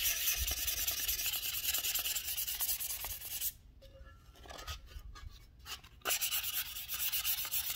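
Hand sanding the edge of a metal differential cover: fast back-and-forth strokes of sandpaper scrubbing rust and road grime off the gasket flange. The rubbing drops to a few faint scrapes for a couple of seconds midway, then resumes.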